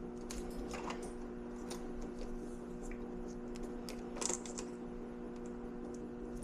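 Faint clicks and taps of a plastic wire clip and harness being handled at a furnace control board, a few scattered and a small cluster about four seconds in, over a steady low hum.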